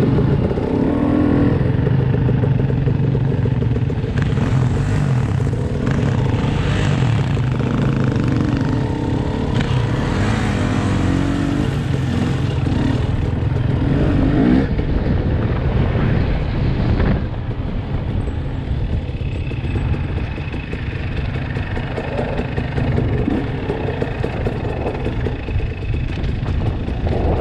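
Dirt bike engine running and revving as the bike is ridden up a narrow dirt trail, the pitch rising and falling with the throttle; it eases off somewhat after about seventeen seconds.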